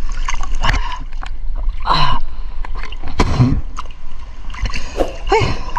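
Water splashing and sloshing around an action camera held at the surface of a fast river current, with many short sharp taps and knocks.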